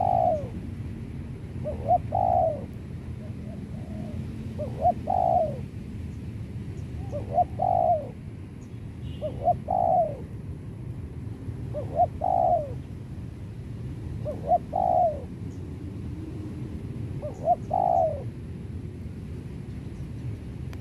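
Spotted dove (tekukur) cooing: the same short phrase repeated about every two and a half seconds, a quick lead note or two followed by a longer note that rises and falls.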